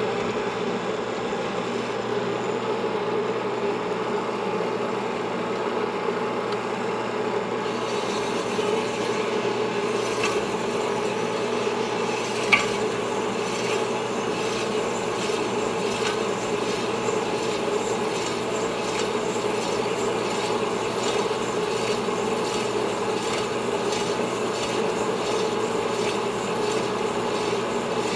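Sunnen honing machine running with a steady hum, its stones rasping against the bore of a Yamaha 250 two-stroke cylinder as the cylinder is stroked back and forth over the spinning mandrel: the final honing to set piston clearance, about a thousandth of an inch left to take out. A single sharp click about twelve seconds in.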